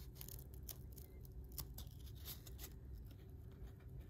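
Baseball trading cards handled and shuffled by hand, card stock sliding and flicking against card stock in short, faint swishes, over a low steady hum.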